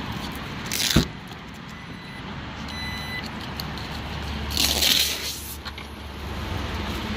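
Rear liftgate of a Jeep Grand Cherokee Trackhawk being opened: a sharp latch clunk about a second in, then two short electronic beeps from the power liftgate, then a brief scraping rustle.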